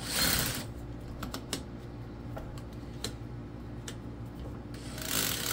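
A cordless drill's clutch (torque) collar being turned by hand, its detents ratcheting in a quick run of clicks at the start and again near the end, with a few single clicks in between. A steady low hum sits underneath.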